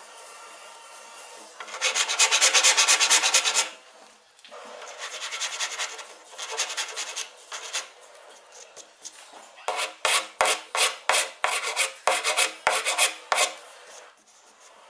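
Sandpaper rubbed by hand over wood and filler on a repaired table corner, in three spells of back-and-forth strokes, the last with separate strokes about three a second.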